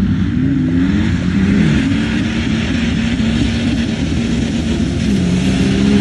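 Two Jeep Grand Cherokees, one with a 4.7 V8 and one with a swapped BMW M57 straight-six turbodiesel, accelerating hard together off-road. Their engines rise in pitch, drop back as they shift a couple of times, then climb again, getting louder near the end as they approach.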